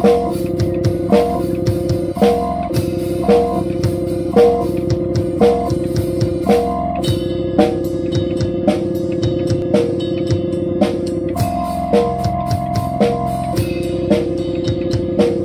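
Instrumental rock: a drum kit played at a slow beat with a heavy accent about once a second, over held electric guitar chords that change a few times.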